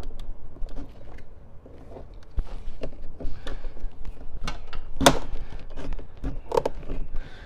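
Plastic panel tool prying at a small plastic trim cover on a Ford F-150 door panel, with scraping and irregular clicks as its retaining clips are worked loose. The sharpest click comes about five seconds in.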